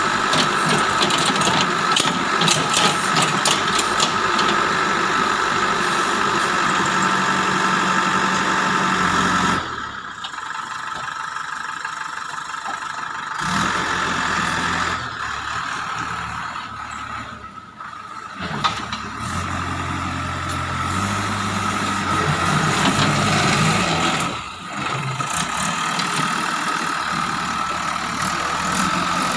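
JCB 3DX backhoe loader's diesel engine running as the machine works, with a steady high whine throughout. The sound drops away briefly a few times, about a third of the way in, a little past the middle and again near the end.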